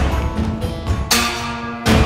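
Soundtrack music: sustained chords over a pulsing bass, with heavy drum hits at the start, about a second in and near the end.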